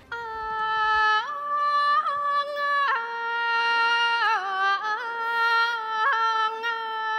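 A woman singing khap sepha, the Thai classical chanted recitation: long held notes that step to a new pitch every second or two, joined by short ornamental turns.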